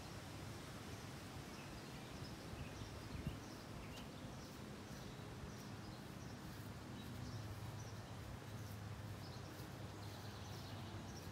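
Quiet outdoor ambience: a steady low hum under faint, scattered bird chirps.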